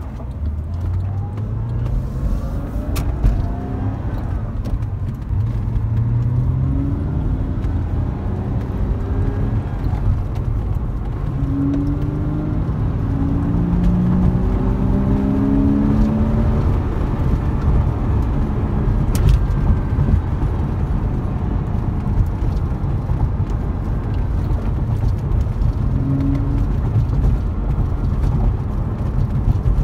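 Porsche Boxster S's 3.2-litre flat-six engine heard from inside the cabin while driving, rising in pitch several times as the car accelerates, over a steady low road rumble.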